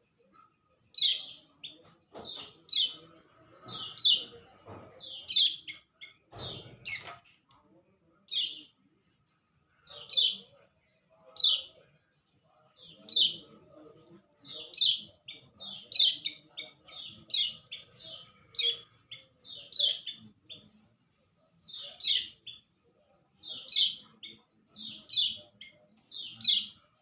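A bird calling with short, sharp chirps that slide downward, singly and in quick pairs, one or two a second with short pauses. A steady high-pitched tone runs underneath, and there is a single knock about seven seconds in.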